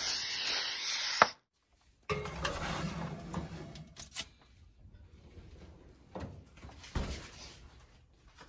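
Aerosol can of cooking oil spraying with a steady hiss for about a second, then cutting off suddenly. After a short gap, a baking pan scrapes as it is slid onto a metal oven rack, followed by a few knocks.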